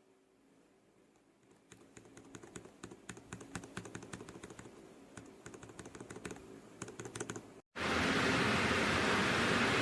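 Typing on a mechanical keyboard fitted with ABS keycaps: rapid, irregular key clacks for about six seconds. Near the end the typing cuts off, and a loud, steady hiss takes over.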